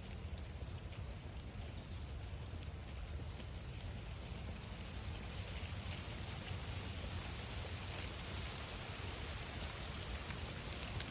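Steady rain falling on a forest trail, an even hiss with scattered individual drops, growing a little louder toward the end, over a low rumble.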